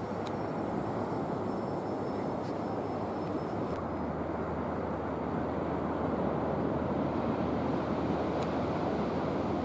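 Steady rushing jet noise from a radio-controlled A-10 Thunderbolt II model flying overhead, growing slightly louder in the second half as it heads back toward the listener.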